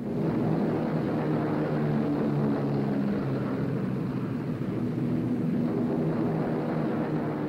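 B-17 Flying Fortress bomber's four radial piston engines droning steadily, cutting in suddenly.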